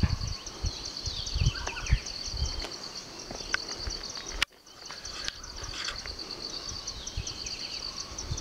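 Insects chirring in a high, fast-pulsing drone, with uneven low thumps of handling noise on the handheld camera's microphone. The sound drops out for a moment about halfway through.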